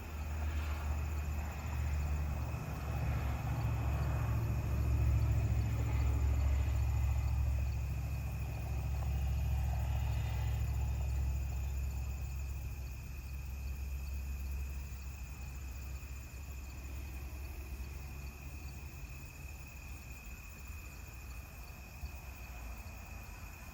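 Low rumble of a distant passing vehicle, swelling over the first several seconds and fading away by the middle, over a steady chorus of crickets.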